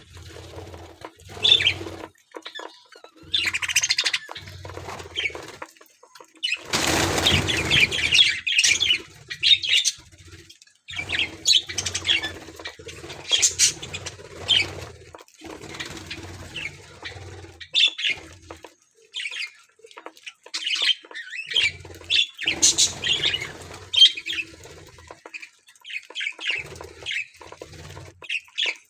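Budgerigars chirping and chattering in short, rapid calls, with a loud burst of wing flapping lasting about two seconds, around seven seconds in.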